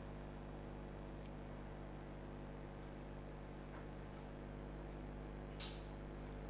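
Steady electrical mains hum with a stack of overtones under the recording, and one short faint click about five and a half seconds in.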